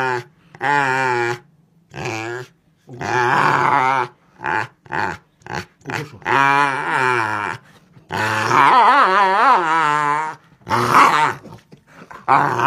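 A large black-and-tan dog growling as it is hugged and nuzzled, in a series of long, wavering growls with short gaps between them; the longest, about two seconds, comes in the second half.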